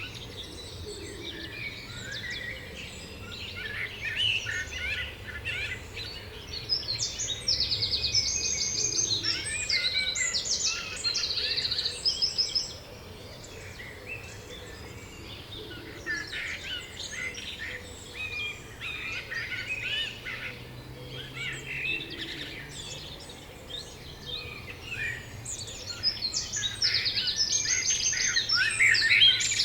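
Spring songbird chorus: several birds chirping and singing over one another, with one nearer bird delivering loud, rapid trilled song phrases, one bout in the first half and another near the end.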